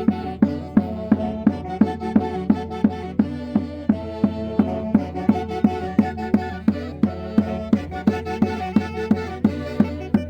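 Andean orquesta típica playing a lively traditional tune: sustained melody lines over a steady beat of about three strokes a second.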